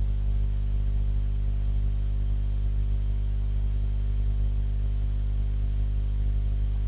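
Steady electrical hum and buzz, a stack of evenly spaced low tones with faint hiss, picked up on a computer's microphone input.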